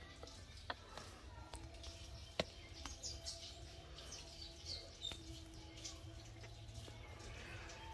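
Small birds chirping faintly in the background, short high falling chirps coming in clusters. A few sharp clicks stand out, the loudest about two and a half seconds in.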